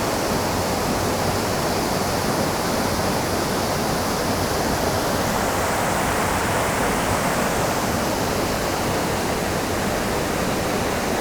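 Waterfall cascade rushing steadily: a continuous, even roar of falling water with no breaks.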